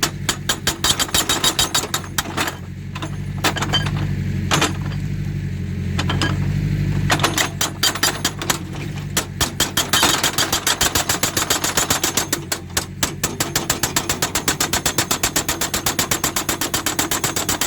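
Hydraulic breaker on a JCB 3D backhoe loader hammering rock: rapid repeated blows, in short runs at first and then a long steady run from about halfway, with the diesel engine running beneath.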